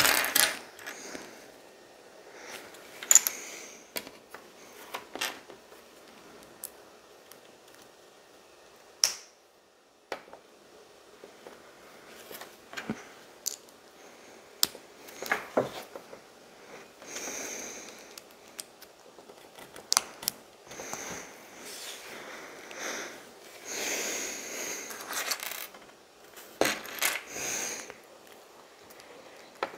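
Small plastic LEGO pieces clicking and clattering as they are picked out and pressed together, in scattered irregular taps with a few short rustling stretches.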